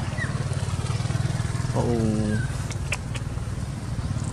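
Small engine running steadily at idle, a constant low pulsing rumble. About two seconds in, a short voice slides down in pitch.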